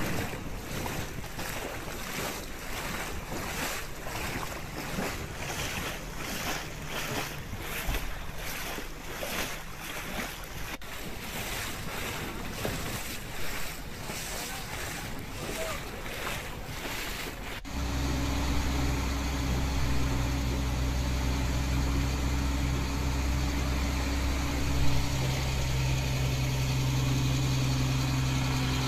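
Boat under way: a rush of wind and water with an even, repeating pulsing. About two-thirds of the way through it cuts off suddenly to a steady low engine drone.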